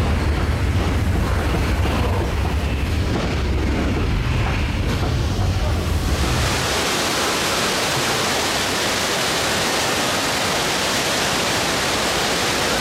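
Earthquake-ride special effects: a deep rumble for the first half, then, from about six seconds in, the loud steady rush of a flood of water pouring into the set.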